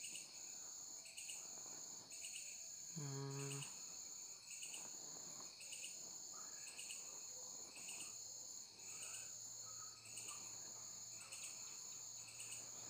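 Faint background crickets chirping: a steady high trill with a louder pulse about once a second. A brief hum of a voice comes about three seconds in.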